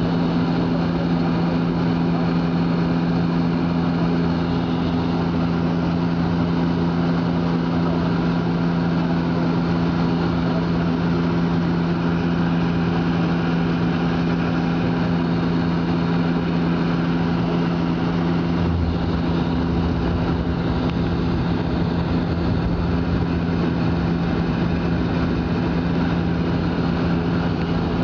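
Airliner cabin noise on approach to landing: a steady engine drone with two low hum tones of constant pitch. A deeper rumble comes in about two-thirds of the way through.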